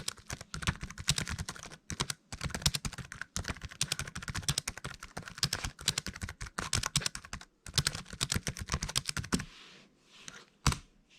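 Fast continuous typing on a Toshiba Tecra M5 laptop's built-in keyboard, a rapid stream of key clicks that stops about two seconds before the end, with one or two last isolated keystrokes after.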